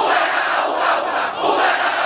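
A stand of hundreds of schoolboys shouting a cheer in unison, loud and rhythmic, phrase after phrase with short breaks between.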